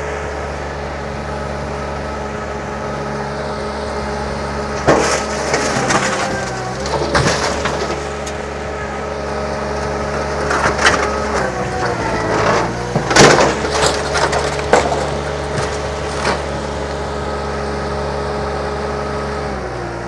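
Perkins diesel engine of a stand-on mini skid steer running steadily at high throttle, dipping briefly under load about twelve seconds in. Over it come several bursts of crunching and cracking as the loader's bucket shoves a wrecked car's crumpled body over onto its roof.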